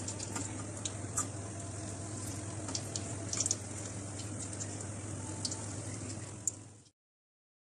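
Yeast donuts frying in oil in a kadhai on low heat: a steady sizzle with scattered sharp crackles over a low hum. It cuts off abruptly near the end.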